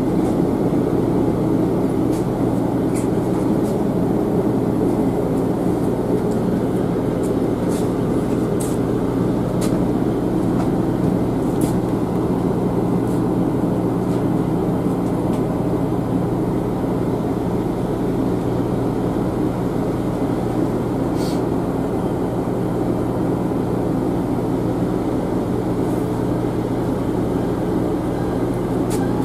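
Steady running drone heard inside a passenger train carriage as it runs into a station, with a constant low hum and a few light clicks and rattles scattered through it.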